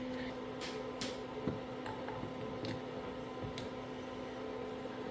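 A few scattered light clicks and taps of small parts being handled during the rebuild, over a steady low hum.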